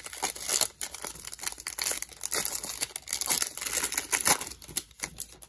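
Foil wrapper of a Panini Revolution basketball card pack being torn open and crinkled by hand: a dense run of sharp crackles that stops at the end.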